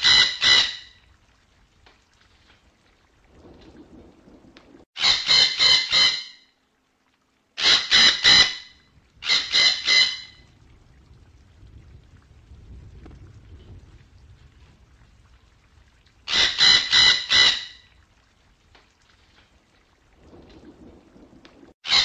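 Parrot calling in short bursts of rapid high notes, each burst about a second long with four or five quick notes, coming about six times with pauses of one to six seconds between.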